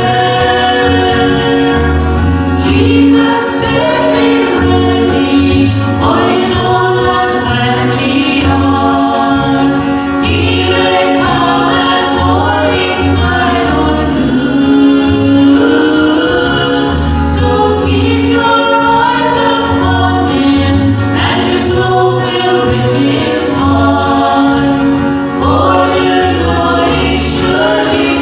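A gospel singing group singing a hymn in harmony, with an instrumental accompaniment whose bass pulses in a regular beat.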